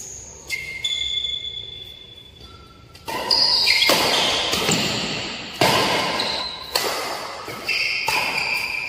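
Badminton rally in an echoing indoor hall: a string of sharp racket-on-shuttlecock hits about a second apart, with short high squeaks between them, likely court shoes.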